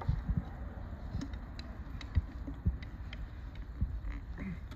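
Scattered small metal clicks and taps from a screwdriver and fingers working the screws on an industrial sewing machine's presser foot and guide, over a faint low hum.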